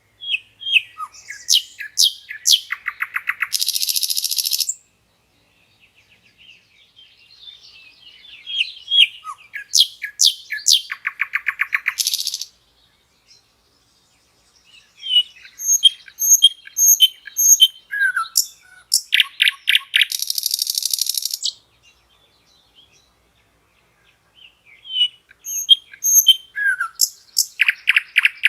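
Common nightingale singing: four song phrases separated by pauses of about two seconds, each made of varied quick whistles and rapidly repeated notes and ending in a fast rattling trill.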